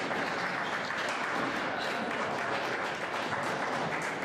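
Spectators applauding, a steady patter of many hands clapping.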